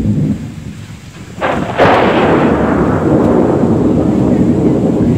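Thunder: a sudden sharp crack about a second and a half in, then a long rolling rumble.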